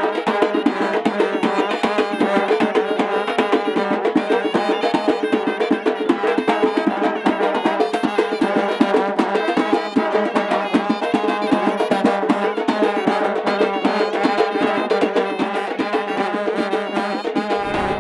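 Tajik karnai and surnai band playing: long brass karnai horns hold a steady drone while a surnai shawm plays the melody over a fast, continuous beat on large double-headed drums.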